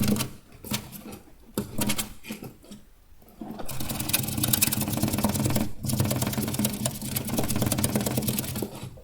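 Hamster making a rapid, fine clicking noise in bursts with short breaks, over a steady low hum, continuous in the second half.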